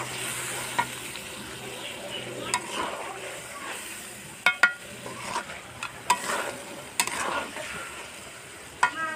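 A long metal spatula stirring and scraping pieces of desi chicken around a large karai, the meat sizzling in thick masala, with sharp clinks of the spatula against the pan every second or so. This is the kosha stage, the spiced meat being fried down.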